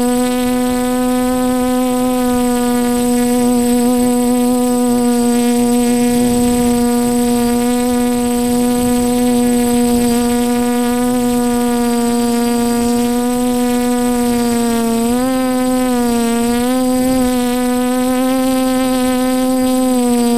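Multirotor drone's motors and propellers humming steadily, recorded from the drone's own onboard camera, with a faint high electric whine above. About fifteen seconds in, the pitch wavers up and down several times as the motors change speed.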